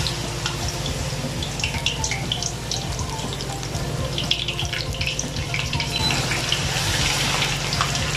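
Tempura-battered shrimp deep-frying in hot oil in a wok: a steady sizzle full of small crackles and pops, over a steady low hum.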